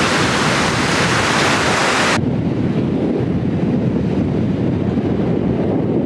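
Ocean surf breaking on a beach, a steady rushing hiss. About two seconds in it cuts off abruptly to a duller, low rumble of wind buffeting the microphone.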